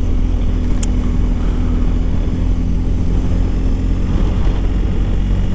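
BMW R1250 GSA's boxer-twin engine running at a steady note while the motorcycle is ridden, with road noise.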